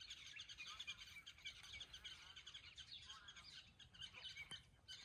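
Faint chorus of small birds chirping, many short, rapid notes overlapping, thinning out near the end.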